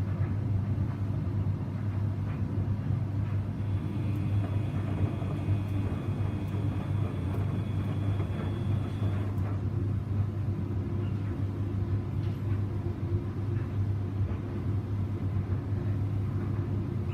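Samsung washing machine running a 95°C Baby Care boil wash: a steady low hum with the rumble of the turning drum.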